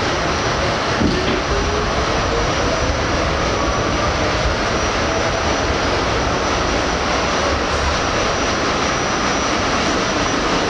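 Interior of an R68 subway car under way: the steady, loud rumble of the wheels on the rails, with a faint motor whine rising in pitch over the first few seconds as the train picks up speed.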